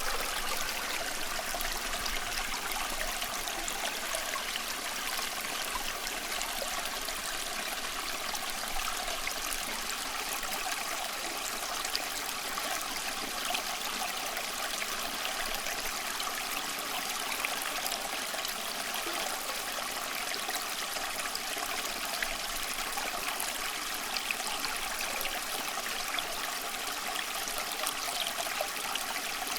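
Flowing stream water running steadily, a continuous burbling rush with small splashes and trickles throughout.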